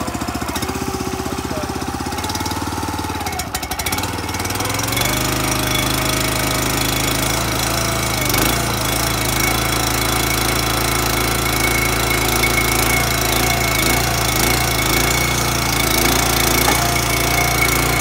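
The 9.5 horsepower Kohler gas engine of a towable mini backhoe running steadily at full throttle while the hydraulic boom and bucket dig. About four and a half seconds in, the engine sound grows louder and fuller, and it stays that way.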